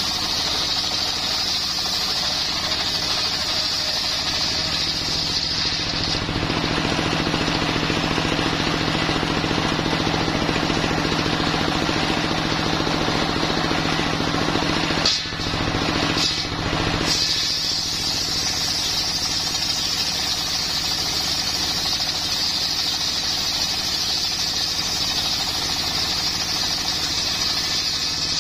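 Homemade circular saw driven by a stationary diesel engine, running steadily while the blade rips a coconut-wood log into slabs. A high whine sits over the engine's drone; it fades for several seconds in the middle while the engine's lower note grows, with a brief drop about halfway before the whine returns.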